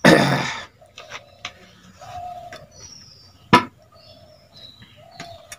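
A short loud rush of noise at the very start, then a single sharp knock about three and a half seconds in as a plastic water bottle is set down on the table. Birds chirp and call faintly in the background.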